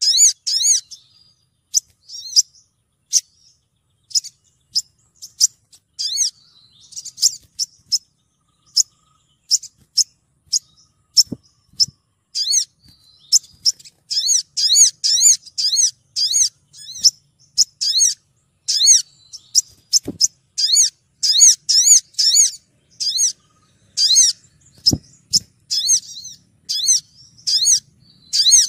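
Female olive-backed sunbird calling to males: short, high chirps, scattered at first, then coming in quick runs from about halfway.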